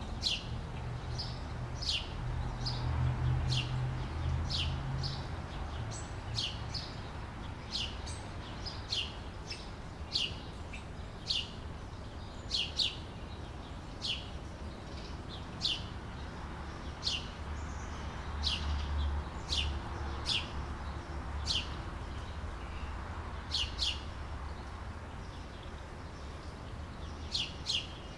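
Outdoor summer ambience of a bird chirping again and again, short high chirps that drop sharply in pitch, about one a second and sometimes in pairs, over a steady low rumble.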